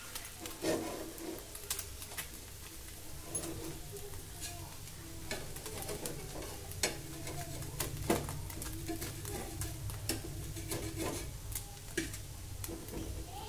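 Egg-coated dosa frying in a pan on a gas burner, egg side down, with a steady light sizzle and scattered short clicks.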